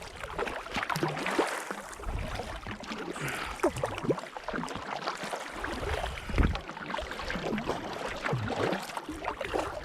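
Kayak paddling on open lake water: irregular splashing and gurgling from paddle strokes and small waves against the hull, with uneven low wind rumble on the microphone.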